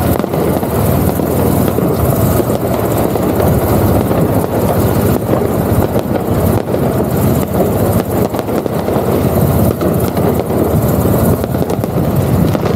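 Motorcycle riding through traffic: a steady rumble of engine and wind on the bike-mounted camera's microphone.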